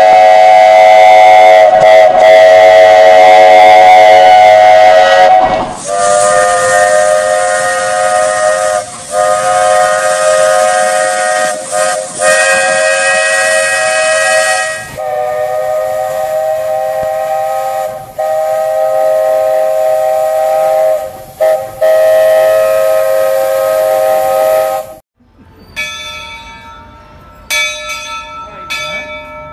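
Walt Disney World Railroad steam locomotive chime whistles sounding in turn: the Walter E. Disney's whistle, then the Lilly Belle's from about six seconds in, with a strong hiss of steam, then the Roger E. Broggie's in several long blasts with short breaks. Each whistle is a chord of several tones. Near the end come a few short, ringing strokes.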